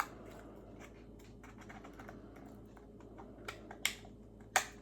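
Scissors snipping and poking a small hole through a paper cup: a quiet, irregular run of small clicks and crinkles, with a few sharper snips near the end.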